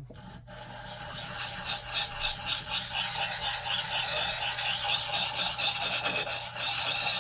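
Rapid hand strokes of an abrasive scraping along the steel edge of a Gränsfors Bruks axe, grinding out a small chip in the blade. The scraping starts suddenly and builds over the first couple of seconds.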